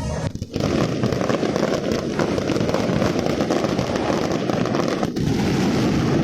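Fireworks crackling in a dense, continuous barrage of many small pops, starting about half a second in.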